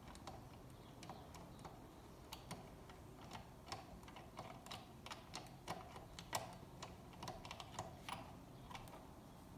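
Faint, irregular small clicks as a metal screw is twisted out by hand from a plastic Buzz Lightyear toy's body.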